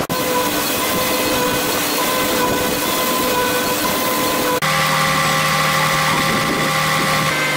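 A concrete truck's diesel engine and pouring machinery run steadily, with a whine held on a few steady pitches. About four and a half seconds in, the sound changes abruptly to a different set of whining pitches over a low hum.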